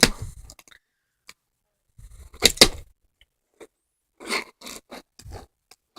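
Handling noise: a few short, irregular scrapes and knocks, the loudest about two and a half seconds in, with smaller ones near the end.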